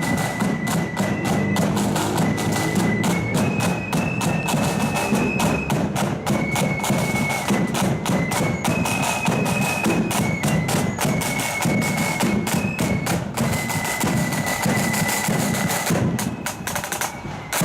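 Marching flute band playing: flutes carry a stepping melody over rapid snare drumming and a bass drum. The music drops in loudness near the end.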